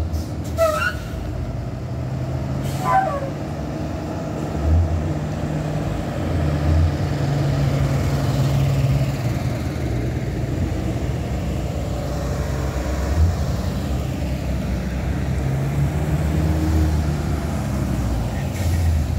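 School bus engines running as a line of buses drives past close by: a steady low rumble with swells as each bus goes by. Two brief falling high sounds come in the first few seconds.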